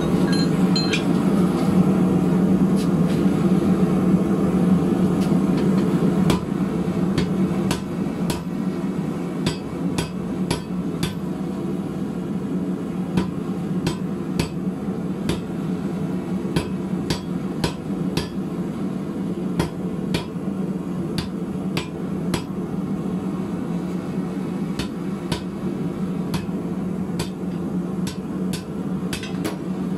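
Hand hammer striking red-hot steel on an anvil in irregular blows, sometimes in quick runs. Under the blows a gas forge burner runs steadily.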